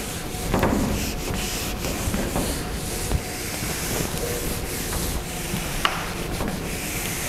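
A handheld eraser rubbing across a whiteboard in repeated strokes, wiping it clean.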